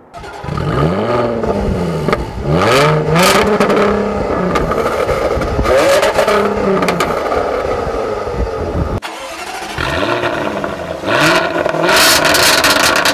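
Jaguar F-Type S Coupe's supercharged V6 being revved several times at a standstill, heard at its twin centre tailpipes, its pitch rising and falling with each blip. About nine seconds in, it changes to the F-Type R Coupe's supercharged V8 being revved at its quad tailpipes.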